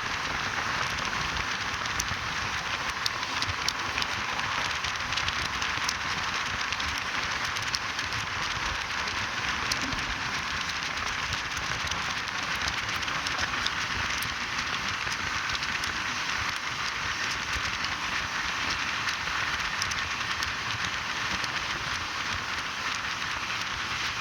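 Steady rushing noise of a moving Indian Railways train heard from inside the coach, with fine crackling clicks throughout.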